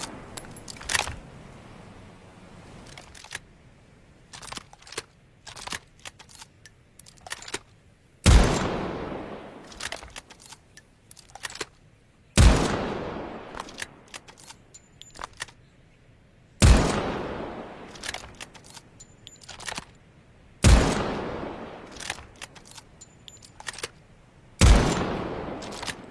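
Snider-Enfield Mark II breech-loading rifle firing .577 Snider rounds: five single shots about four seconds apart in the second half, each with a long echoing decay. Between shots come small clicks and rattles of the hinged breechblock being worked and reloaded.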